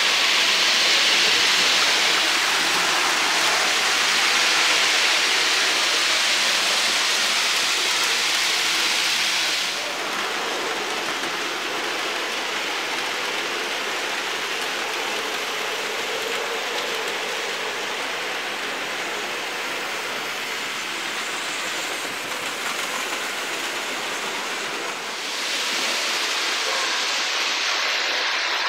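OO gauge model trains running on a layout: a steady rushing whirr of small electric motors and wheels on the track. It is louder and brighter for the first ten seconds, drops back through the middle, and rises again near the end.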